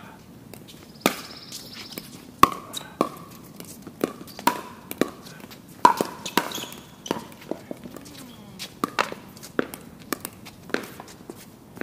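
A long pickleball rally: paddles strike the hard plastic ball again and again with sharp pops, many of them with a short ringing note. The hits come about two a second and speed up into quick exchanges midway.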